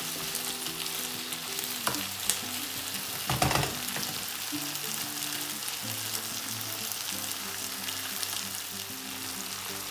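Peppers and onions sizzling as they fry in a stone-coated wok pan, stirred with a wooden spoon that knocks and scrapes on the pan a few times, loudest about three and a half seconds in. Faint background music runs underneath.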